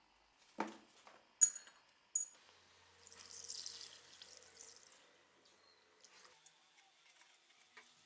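Three sharp clinks in the first two seconds, then liquid rust remover poured from a bottle into a plastic bucket of rusty metal parts for about two seconds, followed by faint small ticks.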